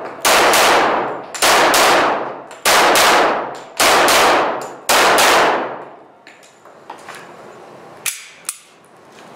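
Glock pistol fired in slow, deliberate semi-automatic shots, five about a second apart, each shot followed by a long echoing ring. A few faint clicks follow after the shooting stops.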